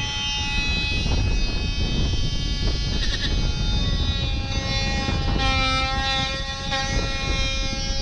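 Strong wind buffeting the microphone, with several steady held tones sounding over it that change pitch about halfway through.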